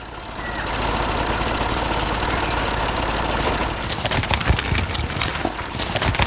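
A small engine running steadily, with irregular clicks and knocks starting about four seconds in.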